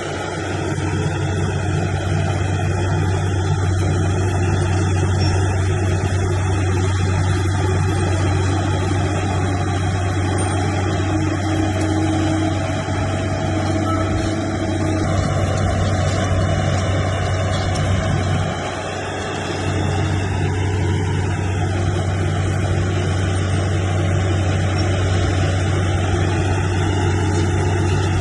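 Bulldozer's heavy diesel engine running steadily under load with a deep hum, easing off briefly about two-thirds of the way through before picking up again.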